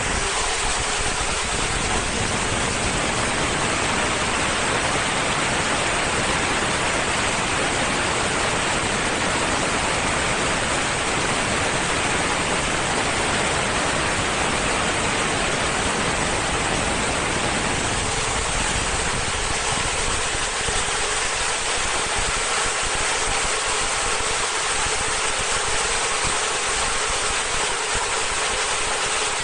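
High-speed film slitting and rewinding machine running, its rolls of plastic film spinning with a steady, even rushing whir. A deeper rumble underneath fades about two-thirds of the way through.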